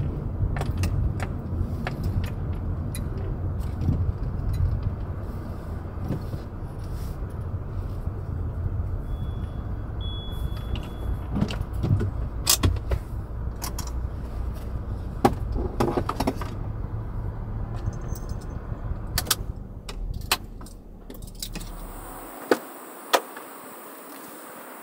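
Renault Kangoo's engine and road noise heard from inside the cabin while driving slowly, with frequent light rattling clicks. The low engine rumble stops abruptly near the end, leaving a quieter steady hiss and a few sharp clicks.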